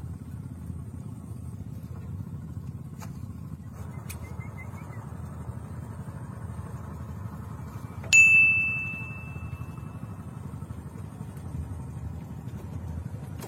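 A single sharp metallic ding about eight seconds in, ringing on one high tone and dying away over a second or so, over a steady low rumble with a few faint clicks.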